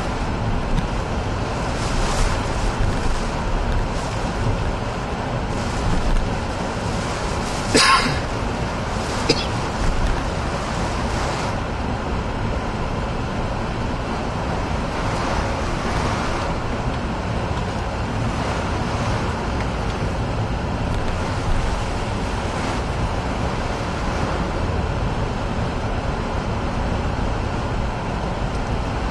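Car driving through hurricane wind and rain on a wet road, heard from inside the car: a steady rush of tyre spray, rain and wind on the body. A sharp knock comes about eight seconds in, with smaller clicks shortly after.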